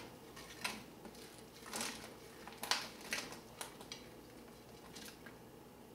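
A silicone spatula scrapes oil-coated okra pods out of a glass dish, and the pods drop onto a parchment-lined sheet pan. About six soft taps and clicks are spread through, fainter near the end.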